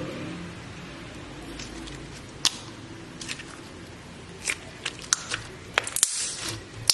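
Slime being squeezed and pressed by hand, giving scattered sharp clicks and pops that come more often in the second half, with a brief crackling hiss about six seconds in.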